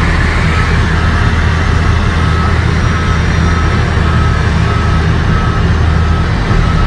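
Towbarless aircraft pushback tractor's engine running steadily, heard from inside its cab, with a steady run of short, high warning beeps starting about half a second in.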